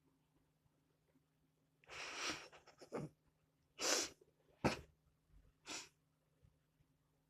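A tiny wheezing laugh: about five short, breathy huffs over roughly four seconds, the first one the longest.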